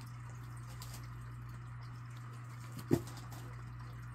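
A low steady hum over faint hiss, with one sharp click about three seconds in.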